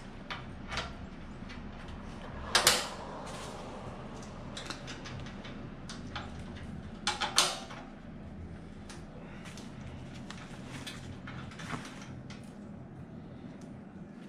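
Metal parts and hand tools clinking and knocking as the discharge chute is fitted to a snow blower's steel housing, with two louder clanks, about two and a half seconds in and about seven seconds in.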